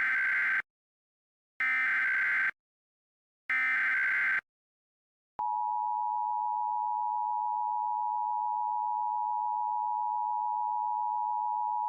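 Emergency Alert System tones: three short bursts of buzzy SAME header data about two seconds apart, then, about five and a half seconds in, the steady two-tone EAS attention signal. Together they open an emergency alert, here a civil danger warning.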